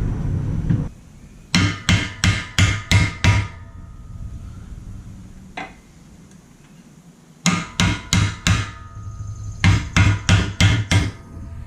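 Hammer blows on a metal plate driving a bearing race into a Honda Ruckus scooter frame. The blows come in three quick runs of about six strikes each, with one lone blow between the first two runs, and each strike rings with a metallic tone. A low rumble cuts off about a second in.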